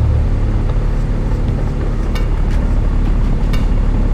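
Honda Civic del Sol's four-cylinder engine idling steadily, still warming up, with a few faint clicks about halfway through.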